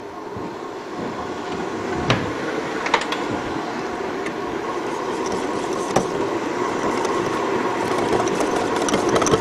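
Electric kitchen mixer motor running steadily, getting a little louder, with a few light clicks of utensils about two, three and six seconds in.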